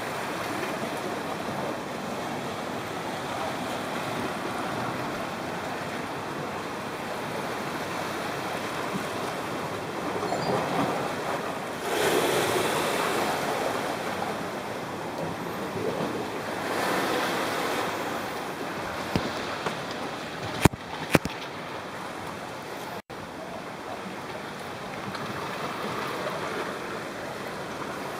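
Sea surf washing against the rocky shore below, mixed with wind noise on the microphone, swelling louder several times. Two sharp clicks about half a second apart come roughly three-quarters of the way through.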